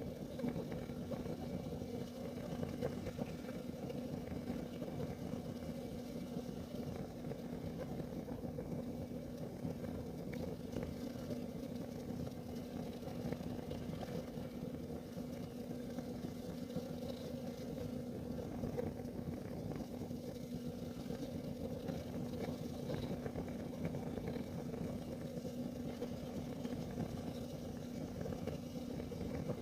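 Kerosene heater burning with a steady low rumble and a constant hum, unchanging throughout.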